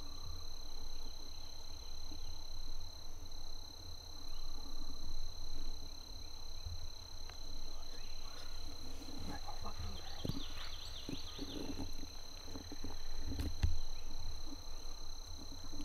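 Dawn wetland ambience: a steady high-pitched chorus of calling animals runs throughout. A quick series of high calls comes about ten seconds in, and brief rustles come near the end.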